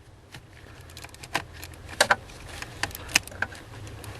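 Irregular sharp metallic clicks and clinks of hand tools and small metal parts being handled, over a low steady hum.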